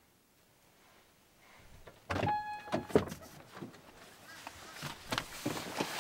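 Getting into a car: the car door is opened about two seconds in with a sudden clatter and a brief steady tone, then a sharp click and a run of knocks and rustles as people climb in.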